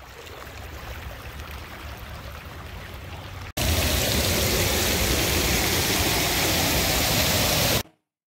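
Muddy floodwater rushing down a wadi channel. About three and a half seconds in, the sound cuts to a louder, steady rush of rainwater pouring off a rock ledge and splashing onto the stone below. It stops abruptly near the end.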